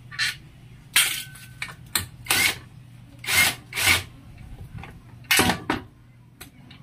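Aerosol can of WD-40 penetrating oil sprayed in repeated short hissing squirts onto the scooter's exhaust mounting bolts to loosen them, with a low steady hum underneath.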